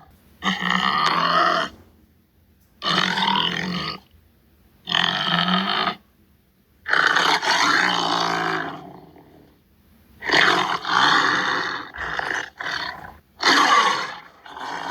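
Tiger giving a series of rough roars and grunts, about eight calls with short pauses between them; the one about halfway through is the longest and trails off.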